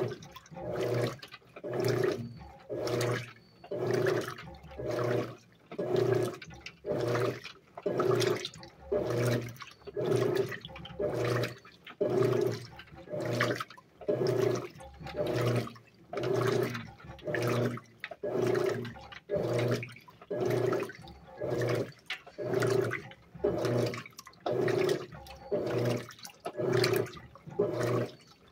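Electrolux LAC12 top-loading washing machine agitating a full load in water, with a wide agitation stroke. The agitator reverses about once a second, and each stroke brings a surge of motor hum and sloshing water.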